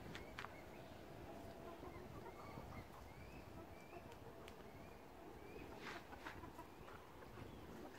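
Chickens in a coop making faint, short, repeated calls, with a few sharp taps and clicks.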